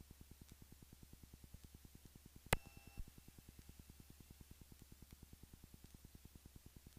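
Faint, steady low hum of the Diamond DA40's engine and propeller in flight, with a fast, even low pulsing of about ten beats a second. A sharp click comes about two and a half seconds in, and a softer one half a second later.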